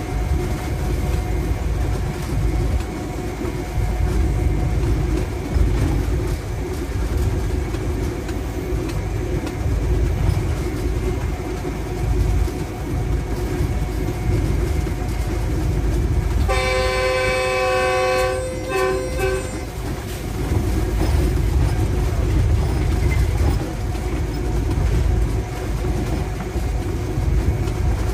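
GEU-20 (GE U20C) diesel-electric locomotive running along the line, heard from inside its cab as a steady low rumble of engine and wheels on track. About two-thirds of the way through, the locomotive's horn sounds in a blast of about three seconds.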